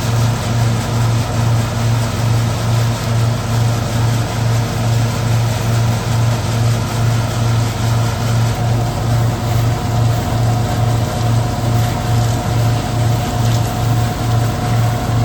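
Hazelnut threshing machine (patoz) running steadily, husking freshly picked hazelnuts, with a low hum that pulses evenly about two to three times a second. A steady higher whine joins about halfway through.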